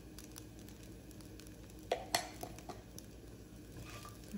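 Wooden spatula stirring and tossing poha in a pan, with soft scraping and two sharp knocks against the pan about two seconds in.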